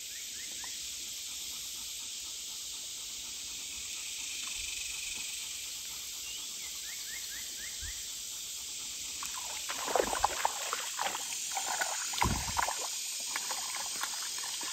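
Steady high insect hiss with a few faint chirps. From about two-thirds of the way in, irregular splashing as a small bluegill is reeled thrashing across the surface toward the bank.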